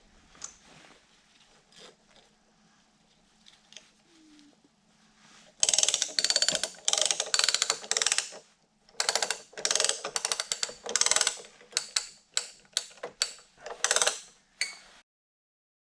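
Ratchet strap being tightened: a run of about a dozen quick strokes of rapid ratchet clicking, starting about six seconds in and stopping abruptly near the end. Before that, only faint handling sounds.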